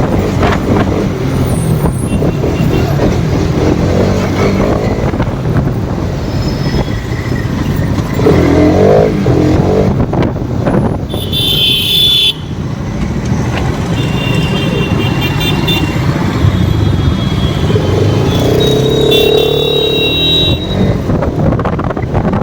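Motorcycle riding through heavy road traffic: steady engine and wind noise on the microphone, with vehicle horns sounding several times, the loudest about halfway through and more near the end.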